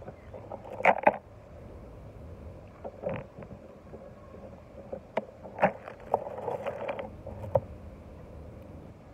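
Beaded bracelets being handled: scattered sharp clicks and clacks of beads, loudest as a pair about a second in, with a short rattle of beads a little past the middle, over a steady low background rumble.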